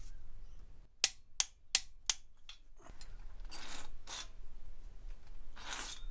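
Hand tools working on a small-block Chevy's rocker gear: four sharp metallic clicks about a second in, then two stretches of metal scraping and rubbing.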